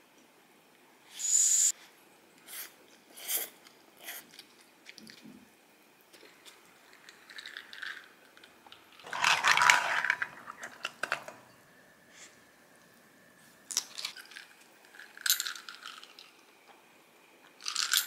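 Someone eating noodle soup: separate slurps and chewing sounds, with light clinks of chopsticks and a small ladle against the dishes, and quiet gaps between. The longest and loudest sound comes about nine seconds in.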